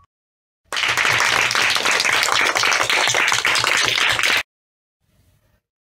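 Applause, many hands clapping together, starting about a second in and cutting off suddenly after about three and a half seconds.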